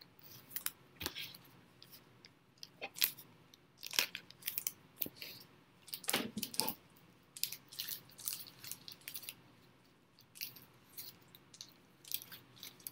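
Trading cards and their plastic sleeves and wrappers being handled on a table: quiet, irregular crinkling, rustling and light clicks, a little louder about 3, 4 and 6 seconds in.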